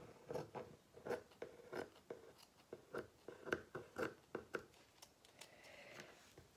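Kitchen scissors snipping through parchment paper under puff pastry: a faint, quick run of short crisp cuts, about two or three a second, stopping about four and a half seconds in.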